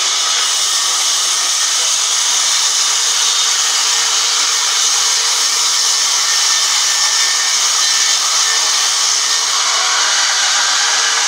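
Large vertical band saw mill cutting lengthwise through a log: a steady, loud hiss of the blade in the wood over the running saw.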